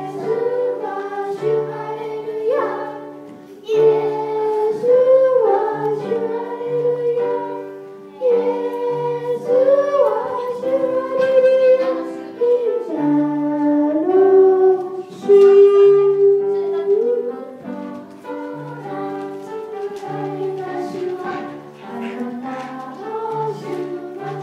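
A group of young children singing a song of praise in unison with piano accompaniment, the piano marking a steady repeating bass under the sung melody.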